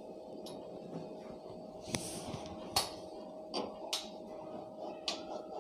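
Kitchen knife slicing through a soft burger bun, a faint soft rustle with a few light taps and clicks of the knife and bun against a plastic cutting board, over a faint steady hum.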